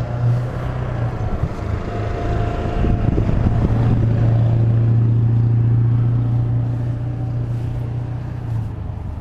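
Low, steady drone of a motor vehicle's engine, growing louder a few seconds in and fading off toward the end, as of traffic going by.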